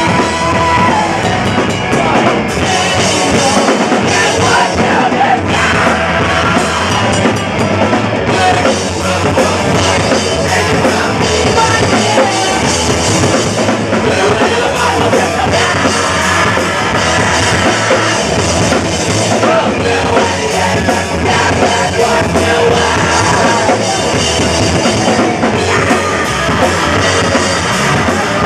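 A rock band playing live and loud: electric guitars, electric bass and a drum kit, in a steady, dense wall of sound.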